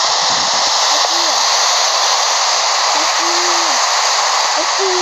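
A steady, loud hiss, with three short voice-like sounds rising and falling in pitch over it.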